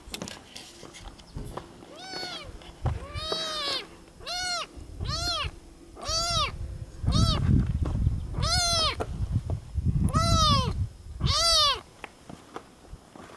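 Orange tabby kitten meowing over and over, about nine short high calls roughly a second apart, each rising then falling in pitch: a hungry kitten calling. Low rumbling noise sits under some of the later meows.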